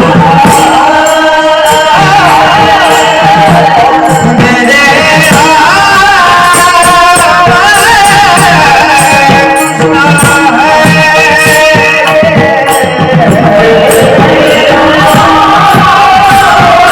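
Singing of a Marathi devotional bhajan, with a steady accompaniment underneath and drum and small cymbal strokes keeping a regular beat.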